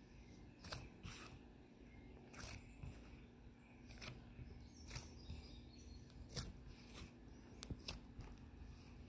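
Homemade play dough being kneaded by hand on a countertop: faint, irregular soft clicks and taps from the dough being pressed and turned, over a quiet steady hum of room tone.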